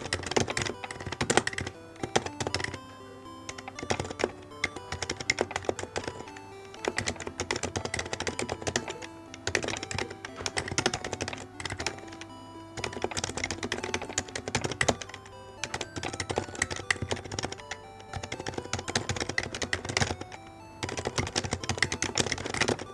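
Typing on a computer keyboard: fast runs of keystrokes with brief pauses between them, over background music.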